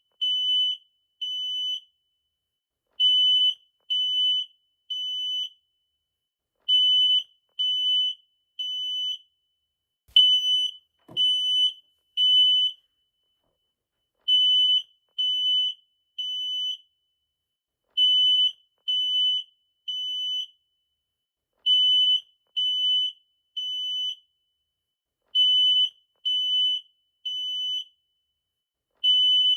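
Smoke detector alarm sounding in the temporal-three pattern that signals fire: groups of three high-pitched beeps, each about half a second long, then a pause of about a second and a half, repeating about every three and a half seconds. The first beep of each group is the loudest. A brief click comes with one group about a third of the way through.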